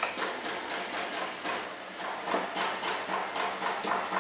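Hot oil sizzling as fuchka puris deep-fry in a pan, crackling in quick pulses of about four or five a second.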